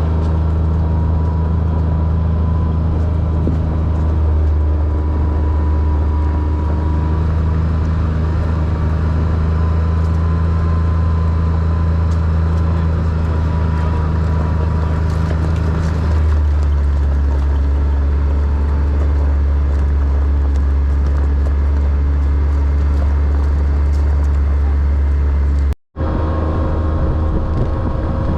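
Four-wheeler (ATV) engine running steadily while riding, with a slight shift in its pitch about two-thirds of the way through.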